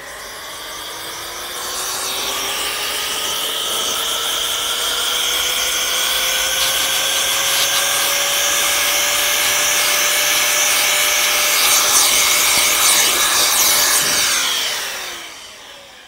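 A laptop cooling fan being blown clean with air: a loud rushing hiss with a whine that climbs slowly in pitch for several seconds, holds, then falls away quickly about fifteen seconds in as the air stops.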